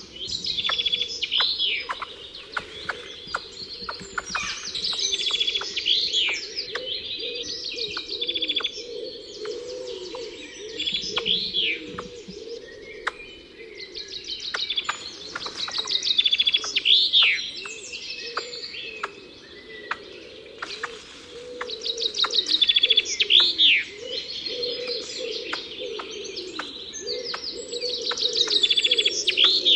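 Wild songbirds singing: one bird repeats a high trilling phrase with a swooping note about every five to six seconds, over a steady lower warbling chorus and scattered sharp ticks.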